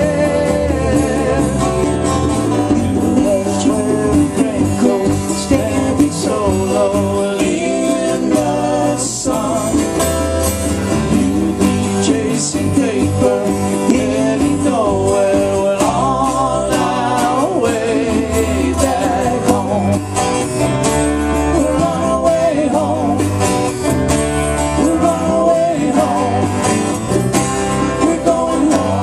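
Live acoustic band music: several acoustic guitars strumming together with drums and sung vocals, playing steadily.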